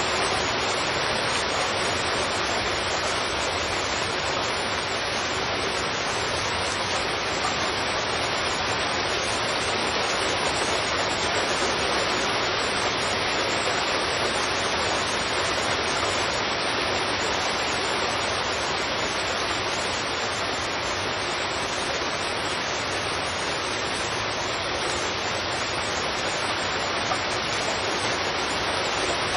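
Heavy rain falling on a street, a steady, even hiss of rainfall with no separate drops or other events standing out.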